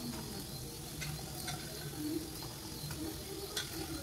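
Faint sizzling of masala in a kadai, with a few soft clicks as boiled peas are dropped into the pan.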